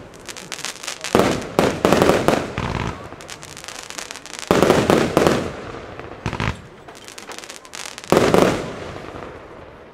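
Aerial fireworks going off: a series of loud bangs and bursts, each with crackling, coming in about five groups spread over the seconds.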